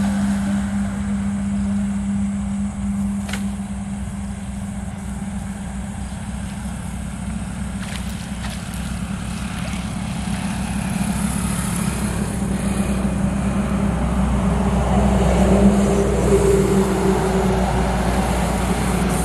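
Truck engine running with a steady hum, growing somewhat louder over the second half with a deeper rumble joining near the end.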